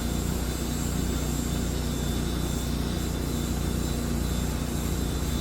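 Steady low machine hum with a thin high whine above it, unchanging throughout.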